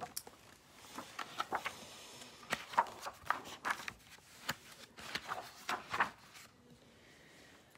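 Pages of a picture book being flipped and turned: a string of short papery rustles and flaps.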